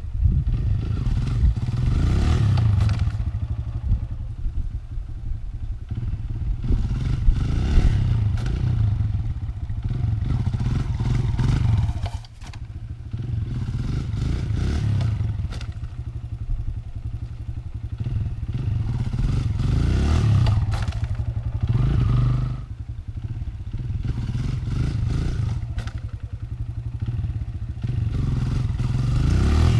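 Kawasaki KLX140's single-cylinder four-stroke engine revving up and easing off again and again as the dirt bike is pulled into short wheelies, with two brief sharp drops in engine sound.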